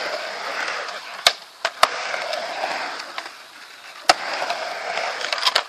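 Skateboard wheels rolling on a concrete ramp, a steady gritty roar, broken by about four sharp clacks of the board.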